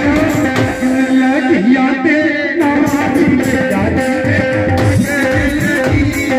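Live Punjabi song: a male singer's voice over a keyboard melody, with hand strokes on a dhol.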